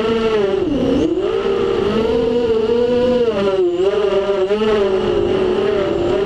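FPV racing quadcopter's electric motors and propellers whining, recorded on the drone's onboard camera. The pitch rises and falls with the throttle, dropping sharply about a second in and again near four seconds.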